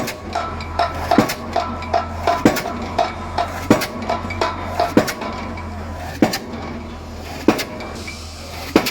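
A pile-driving hammer striking a pile at a steady rate of about one blow every second and a quarter, each blow a sharp metallic clank. Lighter metallic clinks fall between the blows over the first half, with the low, steady drone of the rig's engine underneath.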